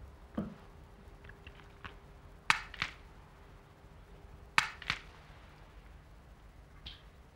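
A sick man coughing hard: two double coughs about two seconds apart, from a chesty illness.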